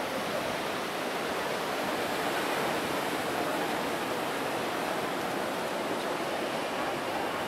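Ocean surf breaking on a rocky reef shore, a steady unbroken wash of noise.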